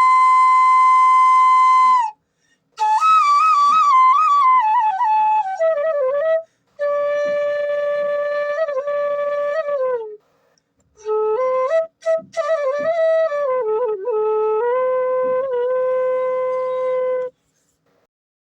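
Bansuri (bamboo transverse flute) playing a slow solo melody: long held notes joined by quick ornamented turns and slides, in phrases separated by short pauses. The last phrase settles on a long low note and stops shortly before the end.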